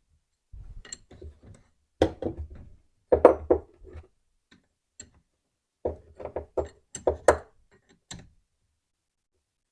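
Half-inch Allen wrench clinking and knocking on the vise's fixed-jaw bolts as they are run in and tightened, in several short clusters of metal taps with pauses between.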